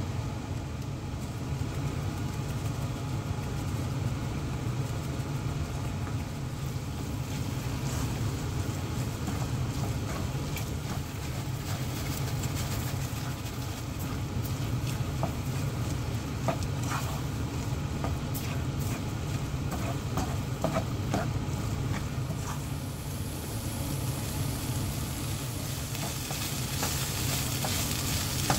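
Fried rice sizzling in a pan as a wooden spatula stirs it and scrapes and taps against the pan, over a steady low hum. The sizzle grows stronger near the end.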